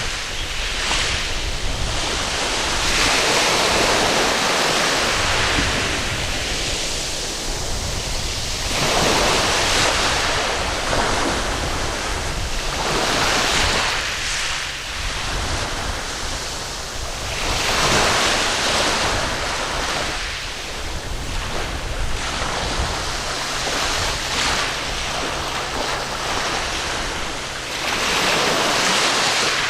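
Waves washing onto a sandy beach, the surf rising and falling back every several seconds.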